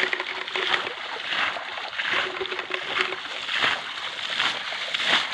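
Water splashing again and again in a shallow, nearly drained stream pool as it is scooped and thrown out by hand, about one or two splashes a second.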